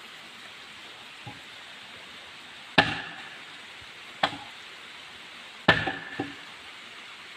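Wood being struck hard by a heavy hand tool: four blows about one and a half seconds apart, each with a brief ringing tone, and a fainter knock before the first. A steady hiss runs underneath.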